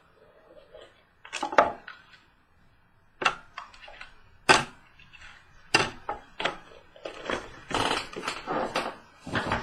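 A trading-card box being opened and its contents handled: irregular short crinkles, taps and scrapes of cardboard and wrapper, coming thicker in the second half.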